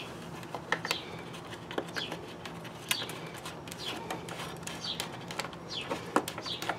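Stiff plastic air-pot panel clicking and crackling as it is handled, with a small bird chirping again and again in short, falling chirps.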